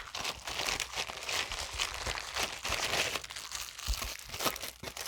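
Plastic packaging being crinkled and torn open by hand, an irregular run of crackling and rustling.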